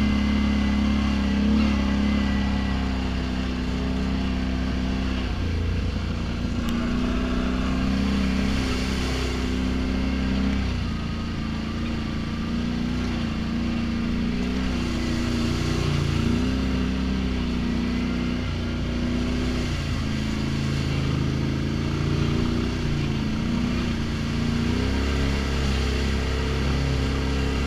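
ATV engine running while riding, its pitch stepping up and down several times as the throttle changes.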